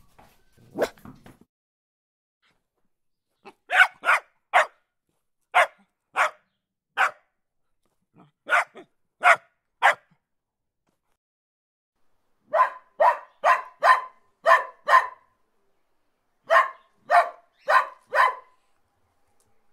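Dog barking: short, sharp single barks and groups of two or three, then two quicker runs of about eight and five barks in the second half, with complete silence between the barks.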